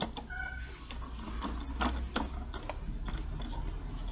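A hand screwdriver turning a screw into the plastic side casing of an Epson L120 printer, with a run of irregular clicks, about three or four a second, and a brief squeak about half a second in.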